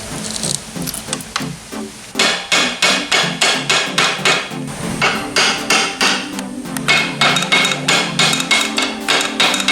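Hammer blows on a metal motorbike part, a steady run of about three strikes a second starting about two seconds in, some of them ringing briefly.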